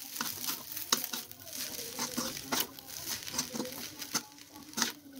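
Fried rice vermicelli being stir-fried in a non-stick wok: a spatula scraping and knocking against the pan in irregular clicks while the noodles are lifted and tossed, over a faint sizzle.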